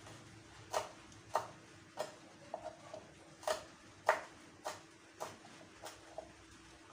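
Kitchen knife slicing spices on a cutting board: short, sharp knocks of the blade hitting the board, about ten of them, unevenly spaced roughly one every half-second to second.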